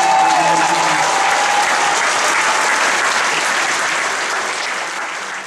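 A large audience applauding, the clapping fading out near the end.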